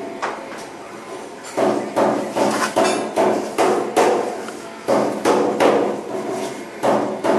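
Hammering: a steady run of sharp, ringing knocks, about three a second, starting about a second and a half in after a couple of lighter taps.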